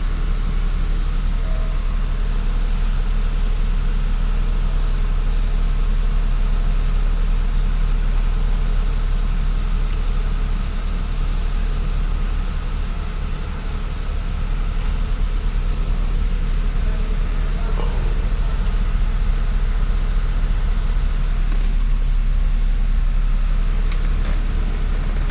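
Mercedes-Benz SLK 350's V6 engine idling steadily, a continuous low, evenly pulsing hum.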